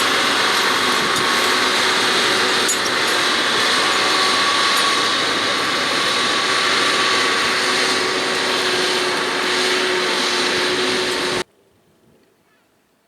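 John Deere 6R 185 tractor engine running steadily under load while pulling a plough, with a steady hum over a loud, even noise. It cuts off suddenly near the end, leaving near silence.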